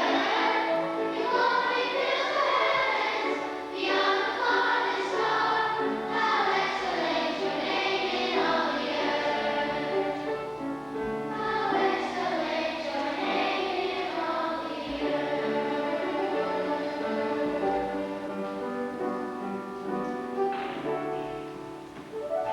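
Church choir singing, many voices on sustained notes, fading down near the end.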